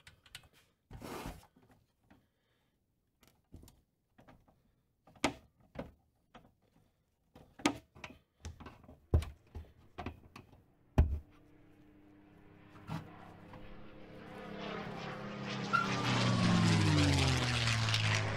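Scattered metal clicks and knocks as a screwdriver pries at a pressed-steel toy truck's wheel hub, with one sharp snap about eleven seconds in. After it, a whirring noise builds, its tones falling in pitch near the end.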